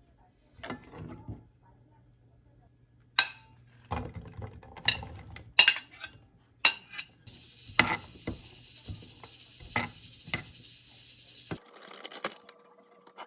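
Kitchenware being handled: dishes and utensils clink and knock, a dozen or so separate sharp strokes. A steady hiss runs through the middle for about four seconds.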